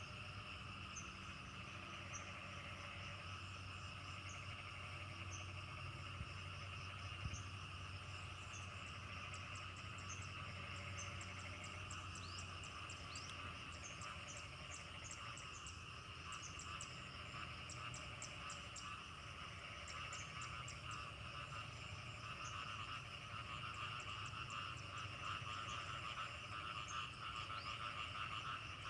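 A chorus of paddy-field frogs calls continuously, with short high insect chirps scattered over it. The chorus grows louder toward the end.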